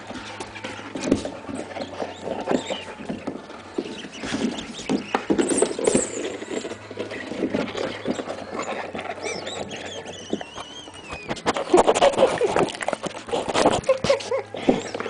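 Dog's claws clicking and scrabbling on a laminate floor as it plays with a toy: a steady run of light clicks and knocks, with a brief high wavering squeal in the middle and busier clatter near the end.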